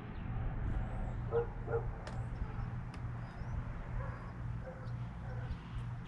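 A dog barking twice in quick succession, short yips about one and a half seconds in, over a steady low hum, with faint high bird chirps scattered throughout.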